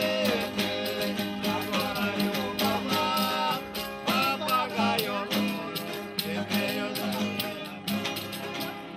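Caiçara fandango played live: violas strummed in a steady rhythm, with a jingling tambourine shaken and struck on the beat.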